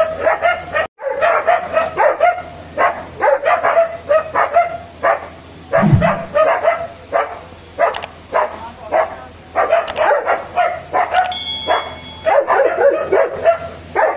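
A dog barking over and over, in runs of short barks several a second. About eleven seconds in, a brief high steady tone sounds.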